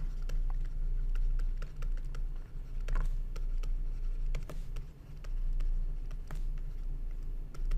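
Stylus tapping and scratching on a tablet surface during handwriting: irregular light clicks, over a steady low hum.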